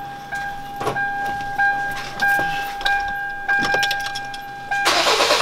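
Clicks and knocks of a car door and cabin with a steady electronic warning tone, then near the end the Kia Grand Carnival's engine is cranked and starts, with a sudden rise in loudness.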